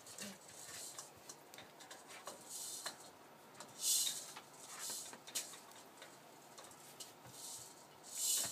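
Rough collie puppies' claws clicking and scrabbling on wooden block steps and the floor as they climb and play, with short scraping rustles, the loudest about four seconds in and another near the end.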